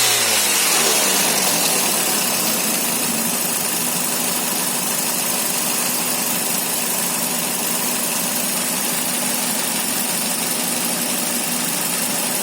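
Toyota 2NZ-FE four-cylinder engine dropping back from a rev in the first second, then idling steadily. The engine carries a knock that is put down to the VVT-i cam phaser (clutch).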